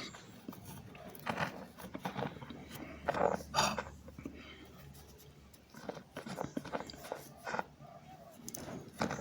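Cornstarch being bitten and chewed: irregular crunching and squeaking, with two louder bursts a little past three seconds in.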